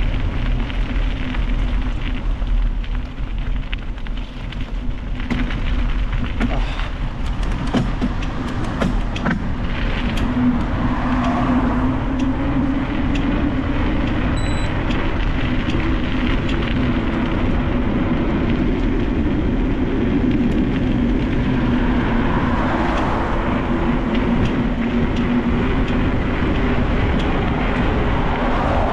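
Mountain bike on the move: steady wind and rolling noise on the bike's camera microphone, with rattles and clicks from about five to ten seconds in.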